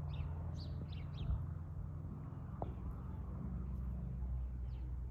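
Wild birds chirping in short calls, several in the first second and a few fainter ones later, over a steady low rumble.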